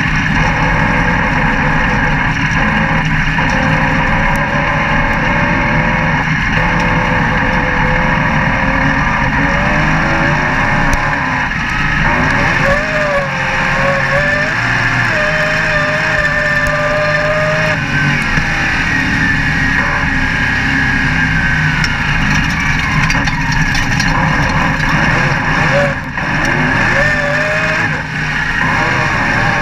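Dirt-track race car's engine at racing speed, heard loud from inside the cockpit, with wind and rumble. Its note rises and falls repeatedly as the throttle comes off and back on.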